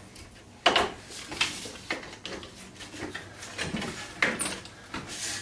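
A slatted window shade being worked by hand out of its carriers, giving a series of sharp knocks and rattles, about one a second.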